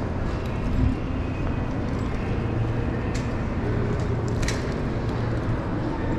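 Railway station ambience: a steady low rumble with a few sharp clicks and knocks.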